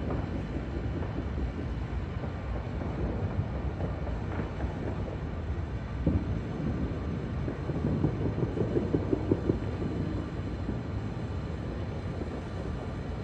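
Fireworks display: a steady low rumble of bursts, with a sharp bang about six seconds in and a quick run of about eight pops a couple of seconds later.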